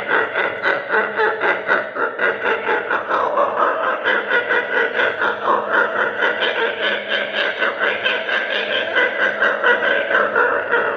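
A man imitating a frog with his voice: a fast, even run of short croaking pulses, several a second, kept up without a break.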